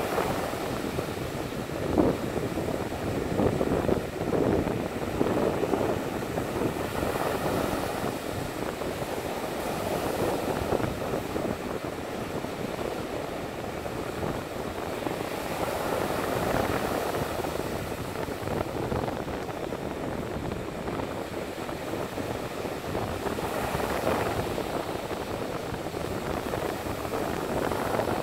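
Rough Baltic Sea surf breaking on the shore and washing up the sand: a continuous rushing that swells and eases every few seconds, over a low rumble.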